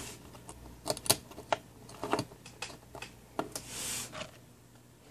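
Irregular light clicks and taps of small plastic jumpers and test-lead clips being handled on a voltage-reference board, about a dozen in all, with a short soft brushing sound about four seconds in.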